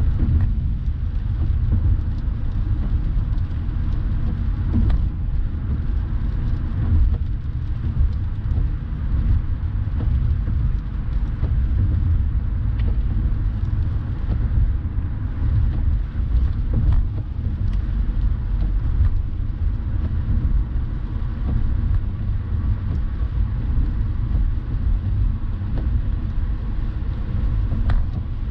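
Steady low rumble of a car driving at highway speed, heard inside the cabin: tyre and engine noise with a hiss of tyres on wet pavement.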